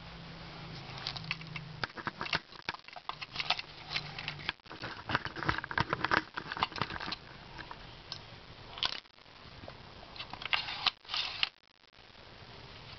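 A 1940s View-Master stereo viewer being handled: irregular clicks and rattles, thickest about five to seven seconds in, with a few sharper clacks near the end.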